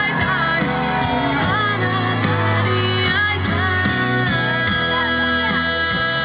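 Music with a singing voice over instruments, at a steady loud level.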